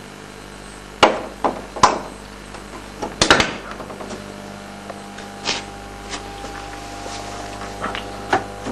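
Mains plug clicking and knocking against a wall socket as it is pushed in, the loudest knocks about three seconds in. From about halfway a steady electrical hum sets in: the rewound microwave-oven transformer energised and feeding the Rijke tube's heating element.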